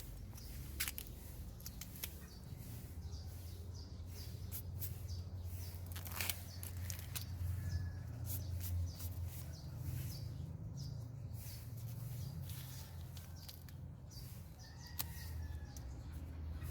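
Irregular rustling and crackling of corn leaves and husks being handled, over a steady low rumble, with a few faint bird chirps.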